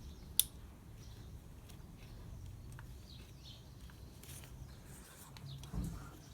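Faint handling noises of a rubber spark-plug cap being worked onto a motorcycle engine's top spark plug: one sharp click about half a second in, scattered small ticks and rustles, and a low thump near the end.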